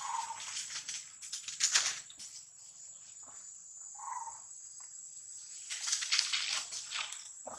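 Steady, high-pitched drone of insects, with scattered rustling over it, loudest a little under two seconds in and again near the end. Two short, soft squeaks, one at the start and one about four seconds in.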